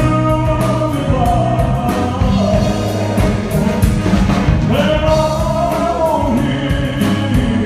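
A singer and accompaniment performing a song live, the singer holding long notes between lines.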